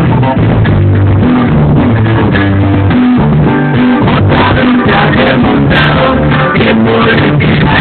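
Music with guitar, bass and drums playing at a steady, loud level.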